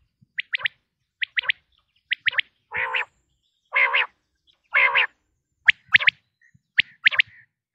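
Quail calling: quick groups of two or three sharp, high notes, repeated about once a second. In the middle come three longer, lower, rasping calls about a second apart.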